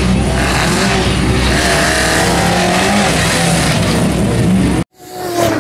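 Talbot Sunbeam rally car's engine running hard at close range, its pitch rising and falling as the driver works the throttle. The sound cuts off abruptly near the end, then swells back up briefly.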